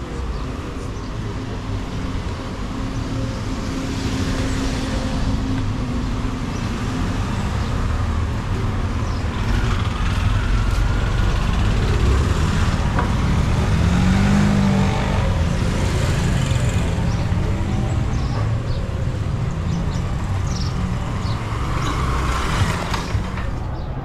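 Street traffic: vehicle engines running and passing by, a steady rumble that swells and fades, with one engine note rising and falling about halfway through.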